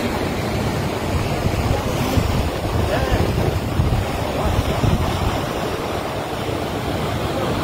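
Swollen river in flood rushing steadily under a footbridge, with wind rumbling on the microphone.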